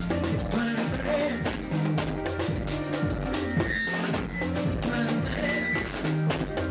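Amplified live band music with a steady drum beat and a repeating bass line.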